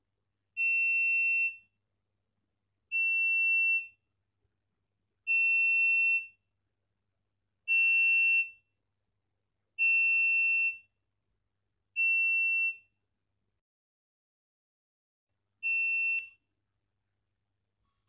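Simulated piezo buzzer in a Tinkercad Arduino circuit sounding one steady high beep seven times, each about a second long, roughly every two seconds with a longer gap before the last. Each beep is the alarm going off as the PIR motion sensor detects the moving object and switches the buzzer on.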